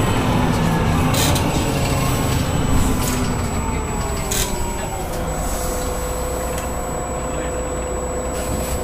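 Solaris Urbino 18 articulated city bus heard from inside: the engine and drivetrain run with a low rumble whose pitch falls as the bus slows. A steady whine holds from about halfway on. Two short hissing clicks come about one second and four seconds in.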